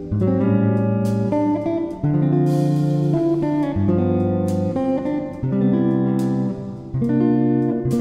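Background music: guitar strumming chords that change about once a second.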